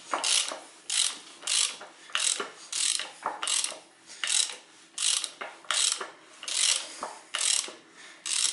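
Ratchet wrench worked back and forth on the crankshaft of a Ford Zetec engine, rasping in short strokes about twice a second as the engine is turned over by hand to check the new timing belt's marks.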